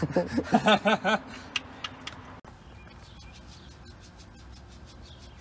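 A man laughing in short, rhythmic bursts for about a second. After that comes a quiet background with faint light ticks.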